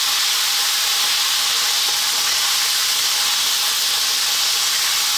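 Chicken drumsticks frying in hot oil in a non-stick wok, a steady high sizzle; they are being seared to take on colour.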